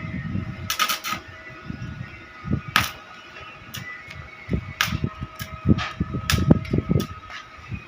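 Arc welding with a small portable welding machine: irregular crackling and sharp pops, over a faint steady whine.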